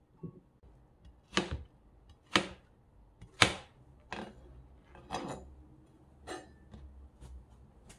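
Kitchen knife cutting down through watermelon onto a plastic cutting board, a sharp knock about once a second.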